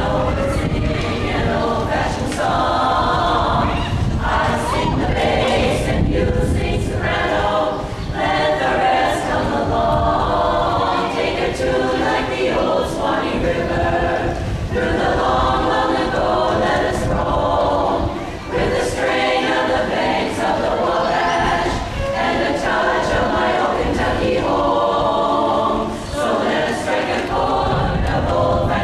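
Women's chorus singing together unaccompanied, in phrases with short breaks between them.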